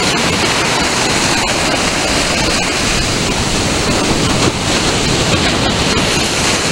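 Surf washing in around the sand piles: a steady rush of breaking waves and foaming water.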